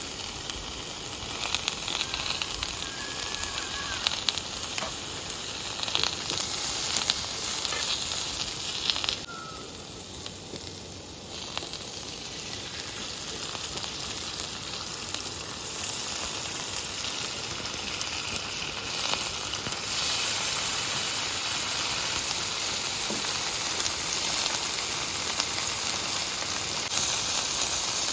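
Food sizzling in a hot pan, a steady hiss that gets louder about two-thirds of the way through.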